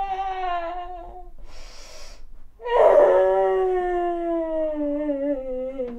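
A woman wailing in drawn-out, theatrical crying. A long wail slides down in pitch and fades out about a second in, a noisy gasping breath follows, then a louder wail starts a little before halfway and sinks slowly lower.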